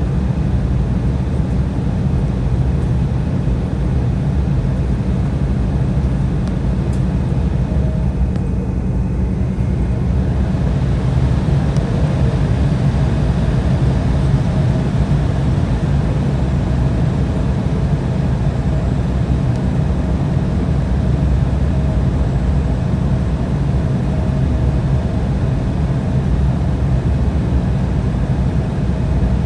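Cabin noise inside an Embraer 175 on the ground with its GE CF34 turbofans at idle: a steady low rumble, with a faint steady whine joining about ten seconds in.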